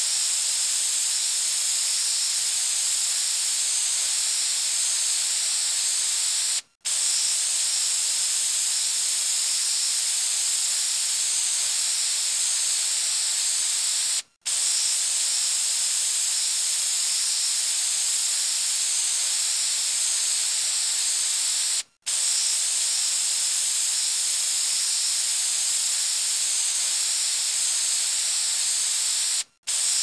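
Aerosol spray can spraying a steady high hiss, in long sprays of about seven and a half seconds, each cut off by a brief gap before the next.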